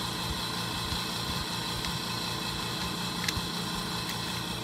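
Steady fan-like hum and hiss, with a couple of faint metallic clicks about three and four seconds in as the clutch spring bolts are handled by hand.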